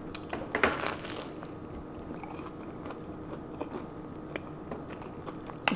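A bite into a caramel cheesecake egg roll, with a crunch of the wrapper about a second in, followed by quieter chewing close to the microphone.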